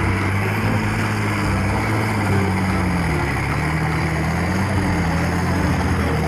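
Motor vehicle engine running steadily with a rushing noise over it, its low hum wavering slightly in pitch.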